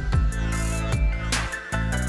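Background music with a steady drum beat over held bass and synth notes. The bass drops out briefly near the end.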